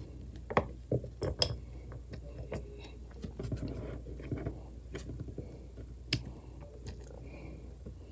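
Small ice cubes handled in a silicone pop-it fidget toy: a handful of scattered sharp clicks of ice knocking against silicone and against other ice, with soft rubbing and shuffling in between.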